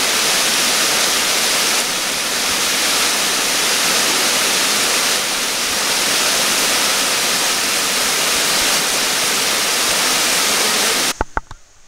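Cascading waterfall on Roaring Run Creek, a steady loud rush of falling water. It cuts off abruptly near the end, with a few sharp clicks.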